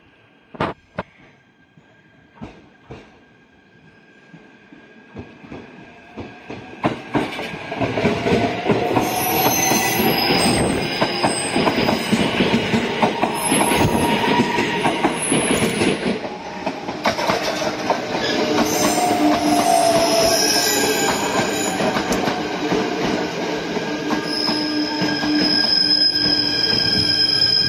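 JR East E129 series electric train passing close by. It approaches from a few seconds in and is loud from about eight seconds, with wheels clattering on the rails. High steady squealing tones ring out over the clatter through the second half.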